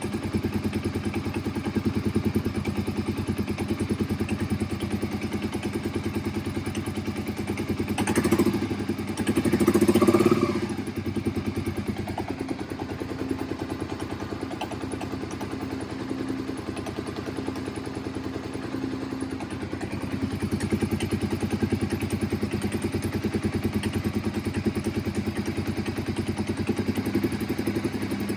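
Suzuki SV650's V-twin engine running steadily at idle, with a louder swell of sound about eight to ten seconds in.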